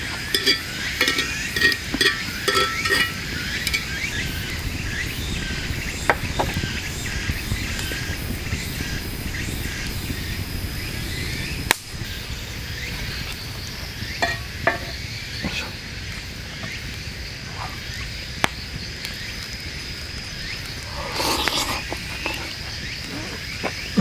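A metal utensil scraping and clinking against a cast-iron skillet in a quick run of strokes, then a steady high insect drone and low background noise, broken by a few single clinks of metal on metal.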